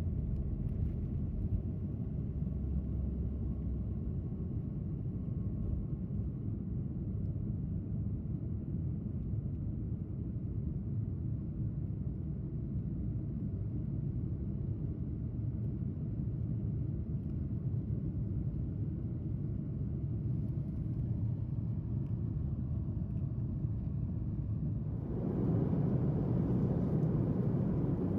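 Steady low rumble of cabin noise inside a Boeing 737 MAX 8 airliner, from its engines and airflow. About three seconds before the end it gets suddenly louder and fuller.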